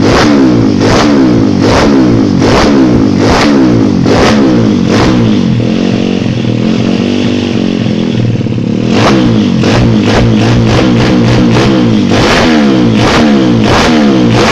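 Kawasaki KLX single-cylinder motorcycle engine being revved over and over in quick throttle blips, with sharp cracks between revs. About halfway through it holds steadier for a couple of seconds, then the blipping picks up faster again.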